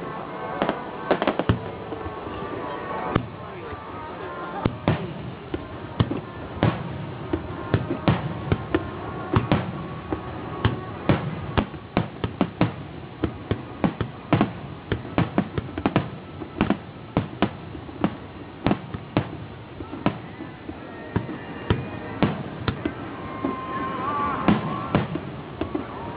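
Aerial fireworks shells bursting in a dense, irregular string of sharp bangs, one to several a second, with a steady noisy background between the reports.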